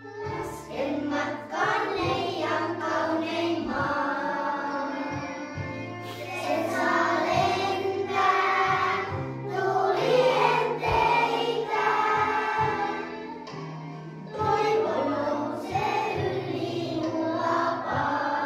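A group of children and women singing a Finnish children's song together over instrumental accompaniment with a steady bass line.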